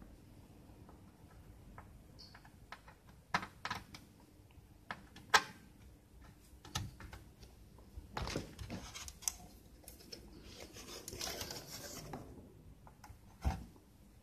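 Light, irregular clicks and taps of small hand tools on a circuit board and workbench, the sharpest about five seconds in, with a short scratchy rustle near the end.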